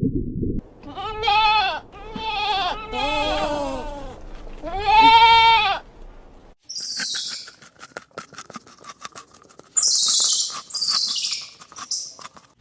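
An animal bleating four times in wavering, arching calls, the last the loudest. These are followed by hissing bursts over rapid clicking in the second half.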